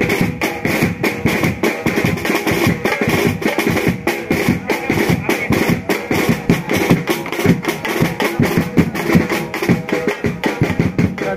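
Loud, fast drumming in a steady, driving rhythm with music, for dancing with the palanquin.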